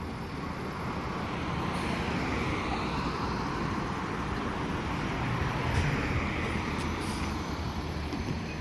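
Road traffic going by: a steady rush of tyre and engine noise that swells through the middle and eases off.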